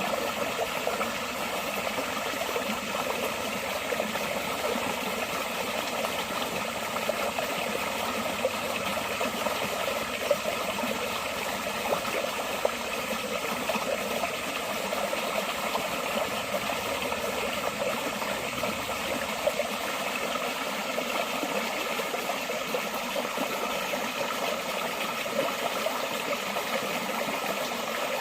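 Water flowing steadily in a forest stream: an even, continuous rushing with no breaks.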